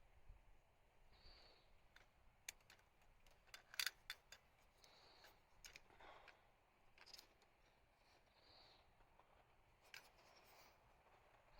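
Faint handling noises: scattered sharp clicks and short soft rustles, with the loudest run of clicks about four seconds in.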